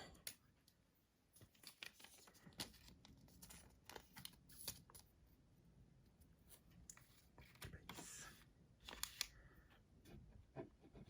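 Faint handling of acetate trading cards by hand: scattered light clicks and taps, with a short rustle about eight seconds in.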